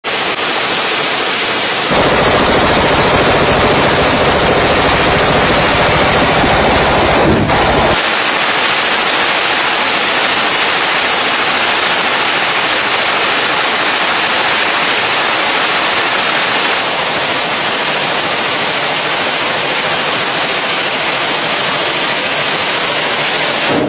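Belt-fed light machine gun firing continuously in long sustained strings, so fast the shots run together into one unbroken noise. This is sustained fire heavy enough to heat the barrel red-hot. The sound jumps in loudness and tone about two seconds in and again around eight seconds.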